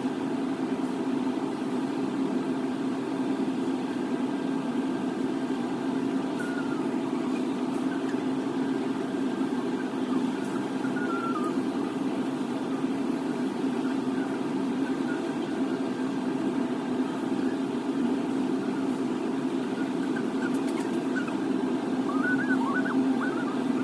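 A steady low mechanical hum, with a few faint short chirps over it.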